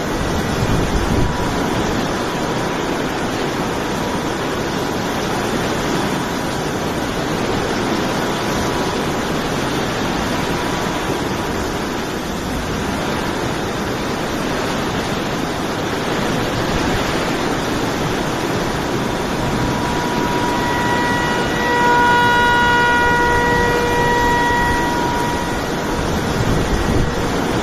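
Hurricane wind blowing as a steady, dense rush of noise. From about 20 to 25 seconds in, a steady whistling tone with overtones rises above it, then fades.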